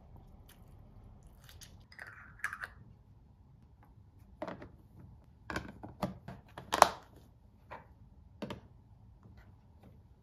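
Sharp plastic clicks and knocks of a lunch box lid being pressed down and its clip latches snapped shut, the loudest click about seven seconds in. Before that, only faint handling sounds.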